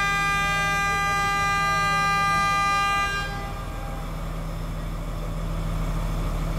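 Diesel passenger train's horn sounding one long steady note that stops about three seconds in. Under it and after it, the train's engine runs with a steady low hum.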